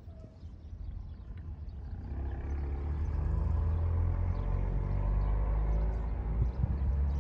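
A motor vehicle's engine running with a low hum, growing louder over the first three seconds and then holding steady.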